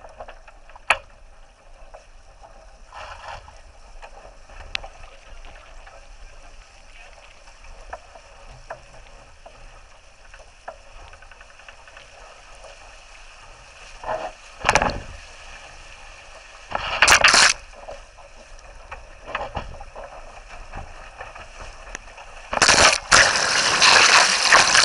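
Water rushing and splashing past a heeled sailing dinghy's hull, with short loud washes of spray over the camera twice in the middle and a longer loud wash near the end as water covers the lens.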